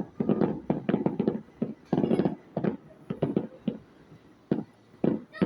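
Fireworks going off in a rapid, irregular series of bangs and cracks, several a second, with a brief higher-pitched sound about two seconds in.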